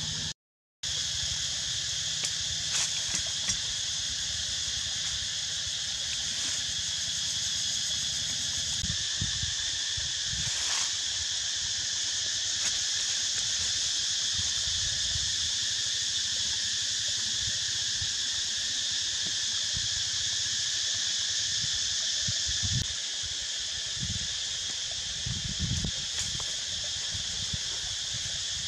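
Steady insect chorus, a constant high buzz in several bands, with scattered low rustles and knocks from handling and movement on the rock.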